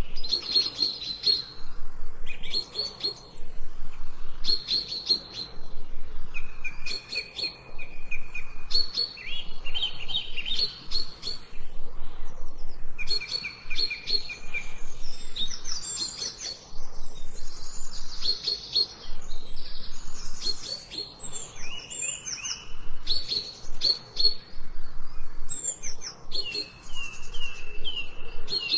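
Songbirds singing in short repeated phrases of whistled notes and trills, with higher, quicker chirps joining around the middle.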